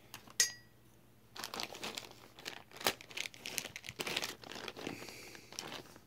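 Plastic packaging of a car stereo wire harness crinkling as it is picked up and handled, in irregular bursts with a sharp crack about halfway. About half a second in there is a single sharp click with a short ring.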